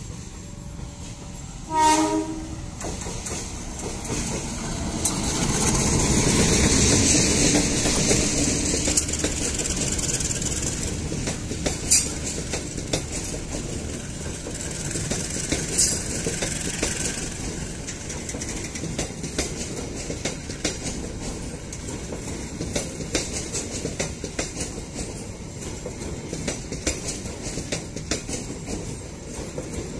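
A locomotive-hauled passenger train passing close by. The locomotive gives a short horn blast about two seconds in, then its rumble grows loudest a few seconds later as it goes by. The passenger coaches follow, rolling past steadily with sharp clicks of wheels over rail joints.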